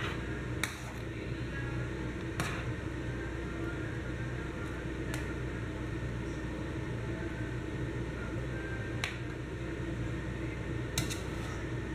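Pot of fish curry in coconut milk simmering on the stove, over a steady low hum, with about five short sharp clicks or pops spread through.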